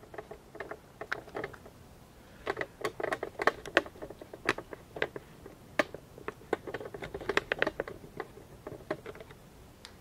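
Light, irregular clicks and taps of hands handling small hard objects, a few at first, then a denser run from about two and a half seconds in until near the end.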